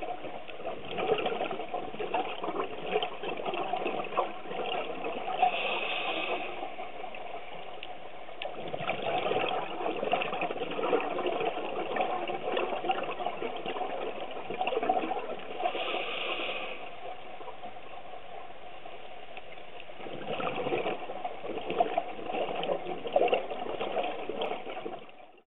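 Scuba diver's regulator breathing, heard underwater: long gurgling bursts of exhaled bubbles that swell and fade in cycles, with a short hiss of inhalation about six seconds in and again about sixteen seconds in.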